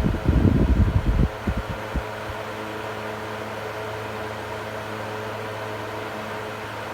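Electric fan running. For about the first second its airflow buffets the microphone with uneven rumbling, then it settles into a steady motor hum over an even rush of air.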